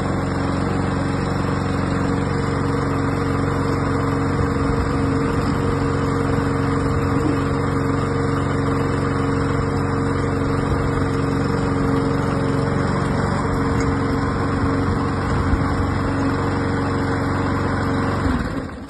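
Walk-behind gasoline lawn mower engine running at a steady speed while mowing, then cutting out near the end.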